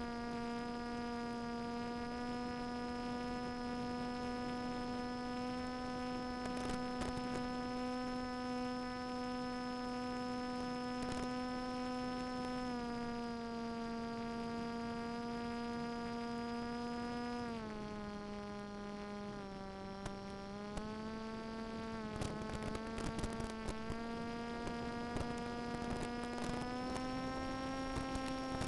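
Electric brushless outrunner motor and propeller of a small flying wing, heard through the onboard microphone as a steady whine. The pitch steps down twice, about 13 and 17.5 seconds in, as the throttle is eased, then climbs back again. Scattered crackles run through the last third.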